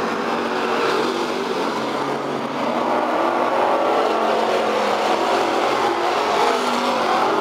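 Outlaw street stock dirt-track race car engines running steadily, the engine note rising and falling as the cars go around the oval.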